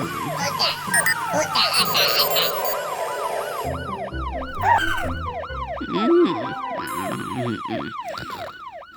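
Cartoon fire truck siren wailing in a fast rise and fall, about three cycles a second, with music-like tones over it and a few heavy low thuds near the middle.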